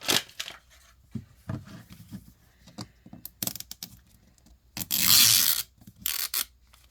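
Plastic toy packaging being handled and pried at: scattered small clicks and scrapes, then a loud tearing rip lasting about a second, a little before the end.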